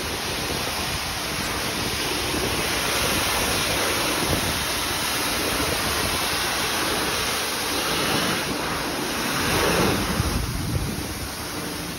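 High-pressure water jet from a self-serve car wash spray wand hitting a car's bodywork and glass: a steady rushing hiss and splash.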